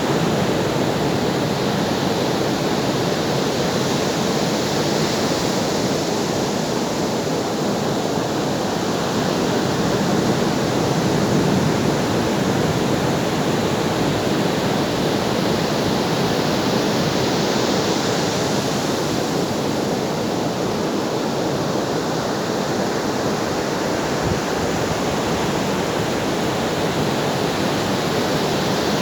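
Ocean waves on a shore: a continuous rush of surf that swells and eases slowly, about every twelve seconds.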